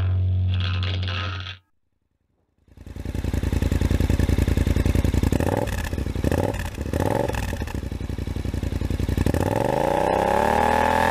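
Music cuts off, and after a second's gap the Kymco AK 550i maxi-scooter's 550 cc parallel twin runs through an Akrapovic exhaust. It idles, is blipped a few times mid-way, then revs up steadily near the end.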